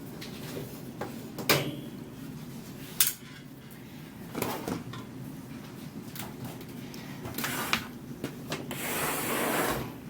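Screwdriver work on a stereo receiver's metal case while its cover screws are removed: scattered clicks and knocks, with a rougher, noisy stretch about a second long near the end.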